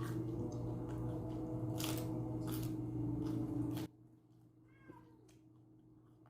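A steady low hum with scattered sharp clicks and crackles, which cuts off suddenly about four seconds in; in the quieter stretch after it, a faint short meow rises and falls once.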